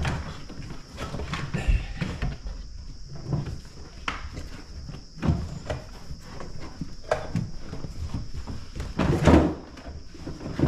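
Irregular knocks, thumps and rustles of car interior parts being handled and pressed into place: the floor carpet and the gear shifter and parking brake assembly in the floor of a Porsche Boxster. The loudest thump comes about nine seconds in.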